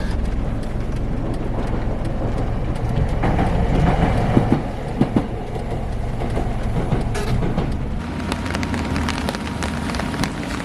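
Train running on rails: a steady rumble with wheels clattering, and a couple of heavier knocks about four and five seconds in.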